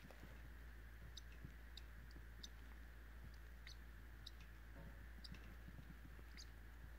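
Near silence, with faint, short high clicks scattered irregularly through it, about a dozen in all, from the small pet bird being stroked on its head.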